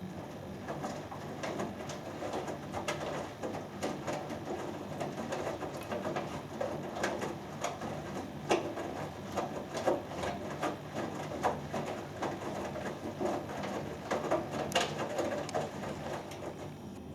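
Hoover Dynamic Next front-loading washing machine in its main wash, the drum turning and tumbling wet laundry, with a steady motor hum under irregular knocks and sloshing.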